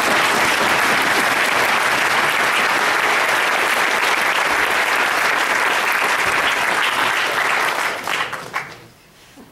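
Audience applauding: dense, sustained clapping that tails off about eight seconds in and has died away by about nine.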